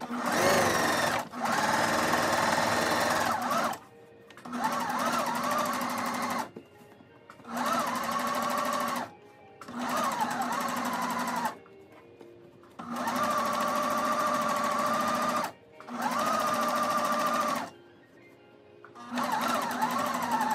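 Electric sewing machine stitching cotton clothesline rope together in short runs, starting and stopping about seven times. Its motor whine rises and dips a little in pitch as the speed changes.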